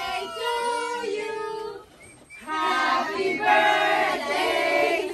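A group of adults and children singing a birthday song together. It breaks off briefly about two seconds in, then comes back louder.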